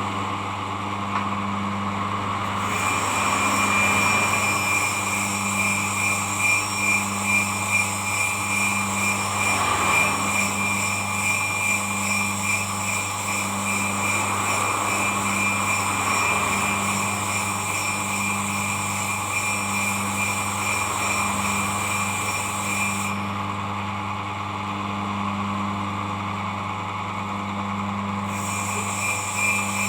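A steel machine blade being rubbed back and forth on an oiled sharpening stone to flatten its grinder-curved edge: a rhythmic scraping about once a second, over a steady low hum.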